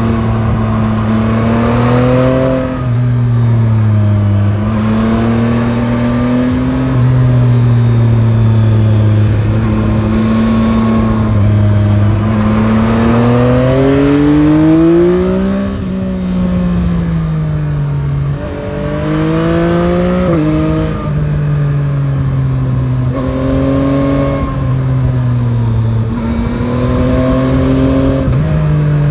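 Yamaha Tracer 9 GT's CP3 three-cylinder engine, heard from the bike, pulling through the gears and easing off on a winding road. Its pitch climbs and drops repeatedly, with one long rise to high revs about halfway through and then a fall, over steady wind noise.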